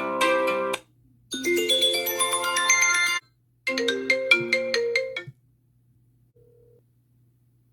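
iPhone XR ringtones: three short melodic excerpts, one after another, each a second or two of bright chiming tones. Then it goes quiet about five seconds in.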